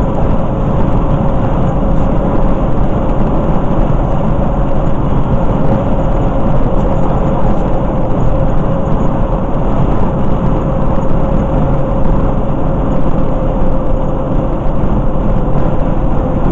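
Steady road and engine noise of a vehicle cruising at highway speed, heard inside the cabin, with a steady hum running under it.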